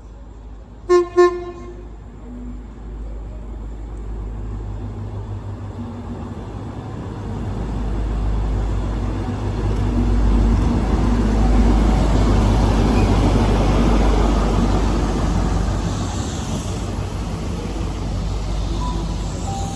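A train horn gives two short blasts, then a train runs through with a heavy low rumble that builds to a peak about halfway and slowly eases off.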